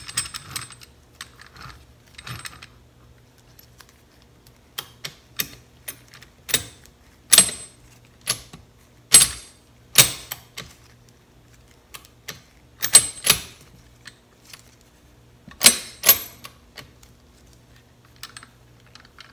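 Irregular sharp metallic clicks and clinks from a Yamaha YZ125 crankcase half and its transmission gears being handled, loudest in the middle stretch.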